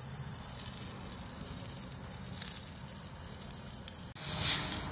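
Dry-aged NY strip steak sizzling steadily as it sears on its edge on a quarter-inch steel griddle plate at about 575–580 degrees, with a brief louder burst of hiss about four seconds in.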